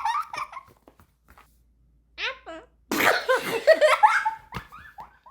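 Laughter trailing off, then about three seconds in a sudden loud human sneeze followed by more laughing.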